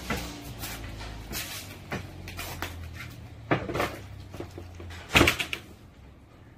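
Snap-in fittings being handled and packed by hand: a series of sharp clicks and knocks, the loudest about five seconds in, over a low steady hum that stops about then.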